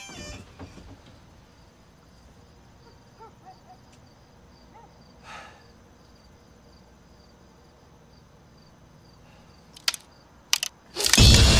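Faint crickets chirping at night in a steady pulse of about three chirps a second. Near the end come two sharp clicks, then a sudden loud blast of noise cuts in.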